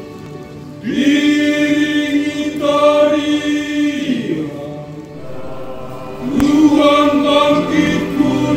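Mixed church choir singing an Easter hymn in two sung phrases, with a short break about halfway through.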